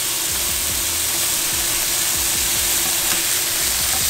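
Sea scallops searing in hot oil in a pan, a steady sizzle, with background music under it.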